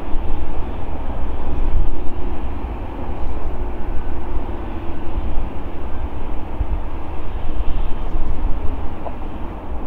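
Jet engine noise of a Boeing 787-9 with GEnx-1B engines on final approach: a steady, distant rumble. A heavy low rumble of wind on the microphone comes and goes over it.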